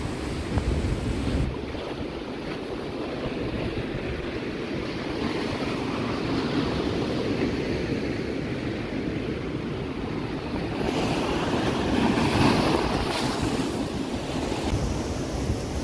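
Rough sea surf washing and breaking over shoreline rocks, a steady rushing that swells louder about twelve seconds in. Wind rumbles on the microphone in the first second or so.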